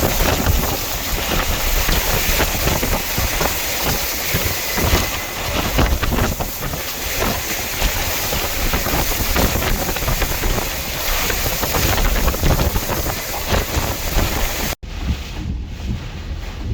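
Hurricane-force eyewall winds blowing hard and gusting, buffeting the microphone with a low rumble under a dense hiss. About fifteen seconds in the sound cuts abruptly to a duller wind rumble with far less hiss.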